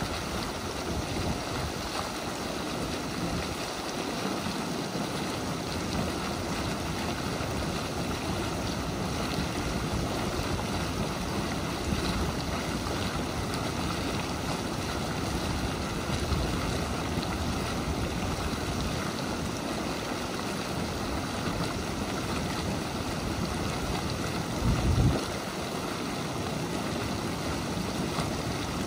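Hot volcanic mud pot bubbling steadily, a continuous watery gurgle and hiss, with one brief low thump near the end.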